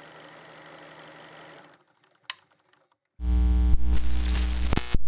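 Quiet background music fades out, a single short tick follows, then about three seconds in a loud electronic logo sting starts, with heavy deep bass, steady sustained tones and glitchy crackles.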